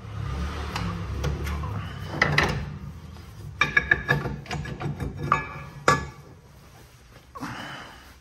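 Rusty rear disc brake rotor being worked off the wheel hub: a low scraping rumble, then a quick run of metal clanks and knocks with a brief metallic ring. One sharp knock comes near six seconds, and a short scrape follows.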